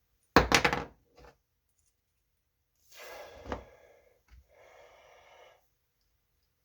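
A torque wrench and its parts being handled: a loud short rattle near the start, then a scraping stretch with a sharp click in it, another click, and a quieter rasping stretch near the end.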